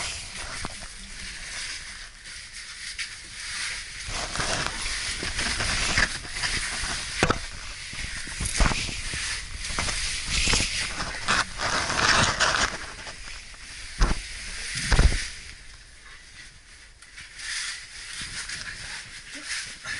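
Rustling and scraping of clothing and gear against rock as someone moves in a tight cave passage, with a few sharp knocks. The loudest pair of knocks comes about two thirds of the way in, and it quietens near the end.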